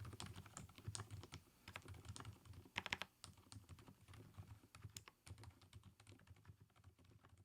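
Typing on an mStone Groove T tenkeyless keyboard with silent Milky switches: a quiet, irregular patter of soft keystrokes, several a second, with a few slightly louder ones. The switches get their low noise from the stem mould itself, with no silicone damper, and sound nearly silent.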